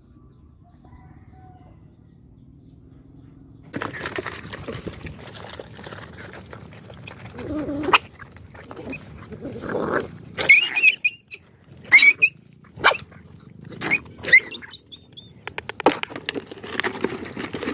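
A pack of dogs eating together from a shared metal bowl: chewing, slurping and the bowl scraping, starting suddenly about four seconds in, with several brief, sharp yelps among them as they jostle at the food.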